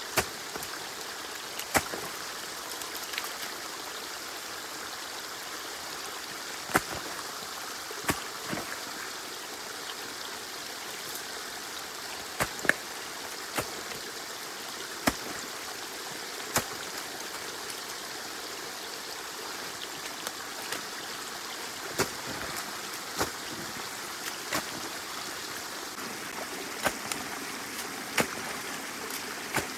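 Water running steadily through a breached beaver dam in a drainage canal, with sharp, brief knocks or snaps every second or two.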